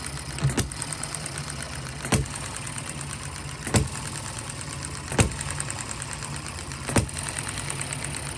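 Model hit-and-miss gas engine running under its governor: it fires with a sharp pop five times, about every one and a half seconds, and coasts on its flywheels between firings with a fast, light mechanical ticking.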